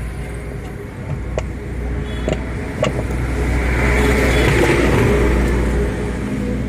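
Steady low engine rumble of a passing motor vehicle, swelling for a couple of seconds in the middle, with a few sharp clicks.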